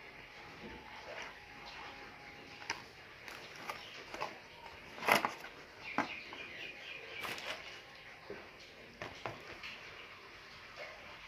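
Hands handling a phone's cardboard retail box and its inserts: scattered taps, scrapes and rustles of cardboard and paper, the loudest knock about five seconds in.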